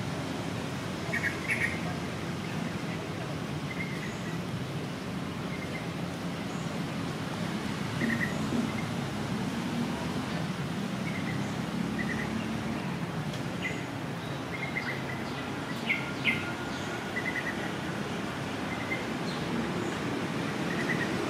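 Birds chirping in short, scattered calls over steady low background noise, with a few louder chirps about a second in and again near sixteen seconds.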